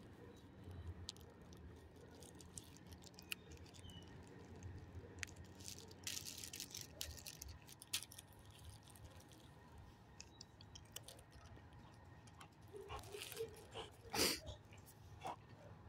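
A dog on gravel making faint, scattered crunches and clicks, with a louder scuff about fourteen seconds in as it comes right up close.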